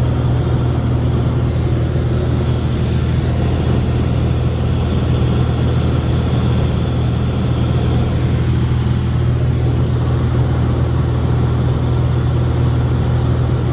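Engine and propeller of a light single-engine propeller plane droning steadily in cruise, heard from inside the cabin.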